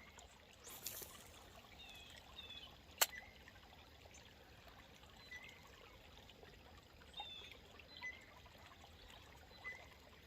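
Faint steady trickle of a flowing stream current. A few short high chirps come and go over it, and there is one sharp click about three seconds in.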